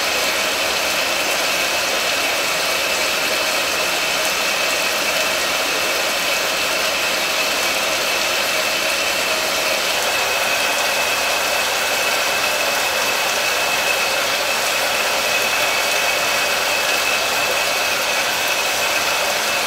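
Shower running: a steady hiss of water spray that does not change, with a faint steady high tone in it.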